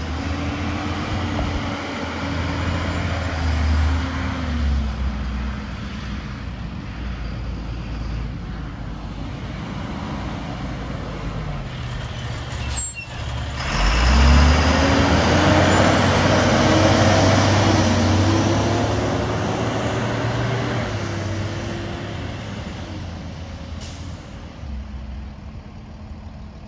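Two Thomas FS-65 diesel school buses pulling away one after the other with their engine cooling fans running. The first, with a Mercedes MBE900, rises then falls in pitch; about halfway through the second, with a CAT 3126, accelerates close by, louder, its engine pitch climbing, then fades as it drives off.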